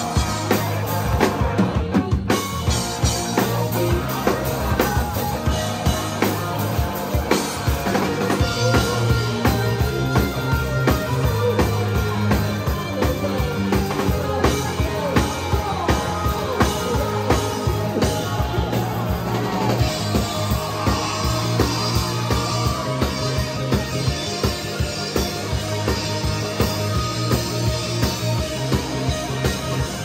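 Live rock band playing: electric guitars over bass and a drum kit keeping a steady beat.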